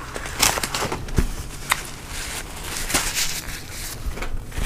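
Paper napkins and food wrappers being handled on a countertop, giving scattered crinkles and clicks, with a dull knock about a second in.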